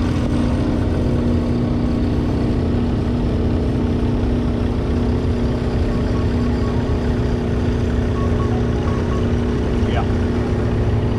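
Old farm tractor engine running steadily close by at one constant speed, a low even drone that neither revs up nor slows down.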